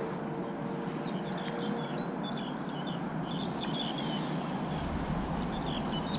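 Steady rushing of a river's current, with small birds chirping over it in several short bursts.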